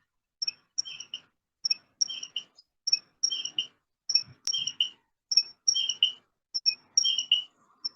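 Cricket chirping: short, high chirps repeated about three times a second, often in twos and threes.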